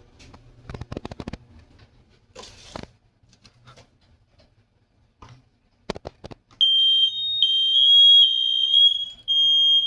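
A few scattered clicks and knocks, then about six and a half seconds in a household smoke alarm sounds under test: a loud, high-pitched tone in long beeps of nearly a second each, with short gaps between them.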